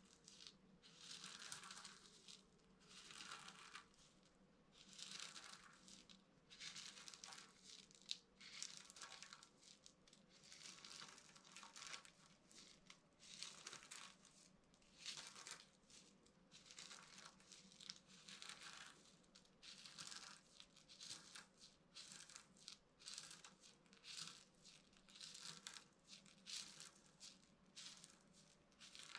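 Dry bar soap crunching and crumbling under hand pressure, in a steady run of short crackly bursts about once a second.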